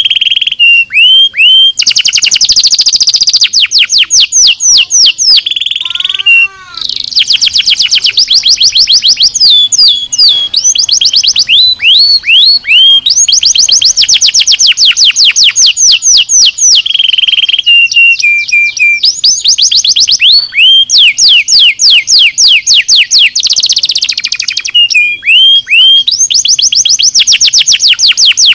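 Domestic canary singing a continuous loud song of rapid high trills. Each trill is a fast run of quick downward-sweeping notes, and the phrases change every second or two with brief buzzy rolls between them. There is a short break about six seconds in.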